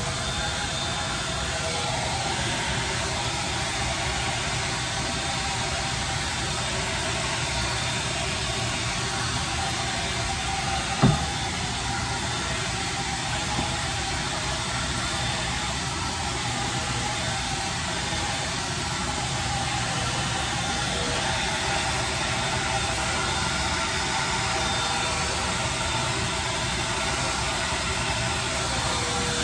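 Handheld hair dryer running steadily as it blow-dries wet hair being pulled straight with a brush, with a single sharp knock about eleven seconds in.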